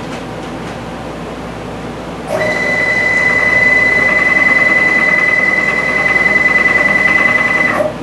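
Stepper motors of a DIY CNC router driving the carriage along the gantry axis. A steady, high-pitched whine starts about two seconds in, holds one pitch through the move, and cuts off abruptly just before the end.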